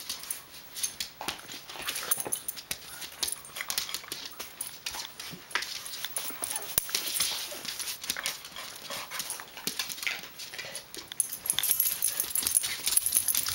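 Small dogs, a silky terrier and a chihuahua, scuffling at close range. Claws click and scrabble irregularly on a tile floor, with dog vocal noises mixed in.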